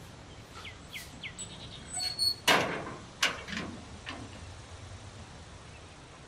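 A wrought-iron gate banging shut with a metallic clang about two and a half seconds in, followed by a sharp click of its latch. Birds chirp faintly before it.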